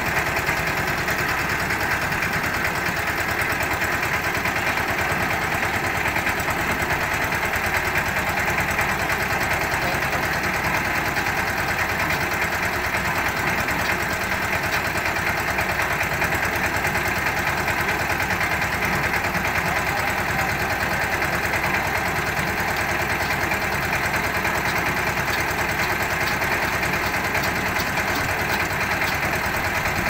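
Small diesel engine of a portable concrete mixer running steadily at idle.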